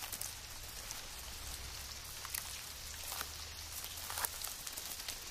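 Locusts chewing grass: a faint, irregular crackle of small clicks and ticks.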